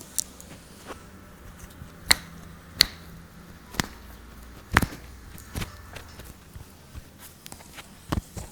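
Sharp clicks and knocks from hands working on a patient's neck during a chiropractic cervical stretch, about seven scattered ones, the loudest about two, three and five seconds in, over a low steady hum.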